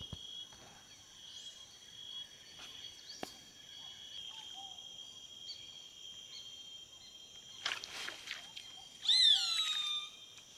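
Steady high-pitched insect chorus with a few faint chirps. About nine seconds in, a loud animal call with several overtones falls in pitch for about a second.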